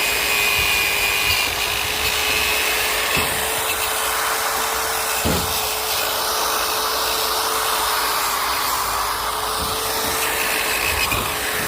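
Electric drill with a wire brush running steadily, scrubbing rust off a steel anchor, with a few light knocks as the brush bumps the metal.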